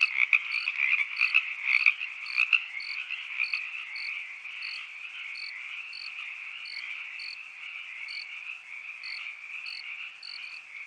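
A chorus of frogs calling, with a cricket chirping steadily about twice a second over it. The frog calls are loudest and most pulsed in the first two seconds or so, then settle into a steadier chorus.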